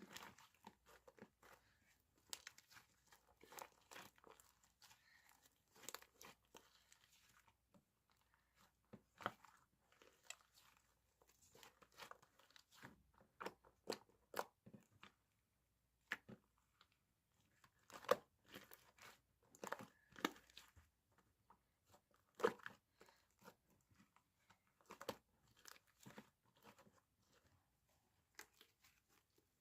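Slime being squeezed and worked by hand, making irregular sharp clicks and crackles.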